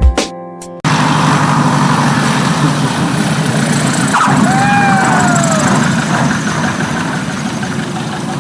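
Airplane engine running steadily, starting abruptly under a second in after the end of some guitar music. A brief squeal that falls slightly in pitch is heard about four and a half seconds in.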